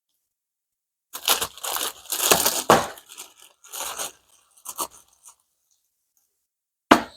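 A bag crinkling and rustling in irregular bursts as a small part is worked out of it, then a single sharp click near the end.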